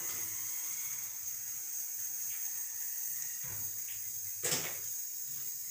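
Steady high hiss of a stove burner heating mustard oil in an aluminium kadhai, the oil warming but not yet frying. A light knock comes about four and a half seconds in.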